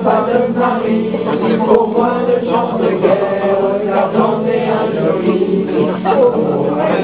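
A group of men and women singing a song together in French, reading the words from song sheets.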